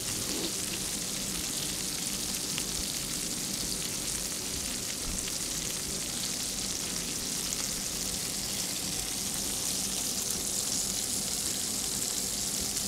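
Whole trout pan-frying in butter and lemon juice, a steady sizzle.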